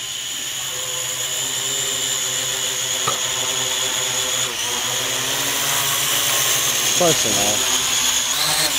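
Syma X8 Pro GPS quadcopter's motors and propellers whining steadily in flight, its pitch shifting partway through, as it returns home on its go-home function and sets down on the grass near the end.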